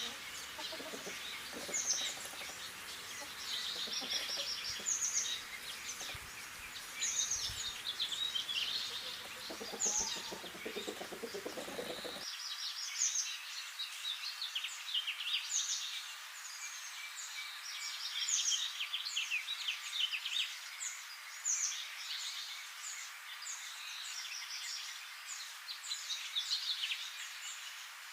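Many small birds chirping, a dense chorus of short high calls, over a low background noise that cuts off abruptly about midway.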